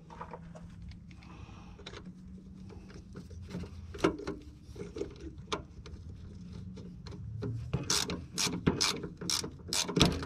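Scattered sharp metallic clicks and clinks of hand tools as a socket is fetched and fitted on a ratchet, coming thicker and louder near the end, over a low steady hum.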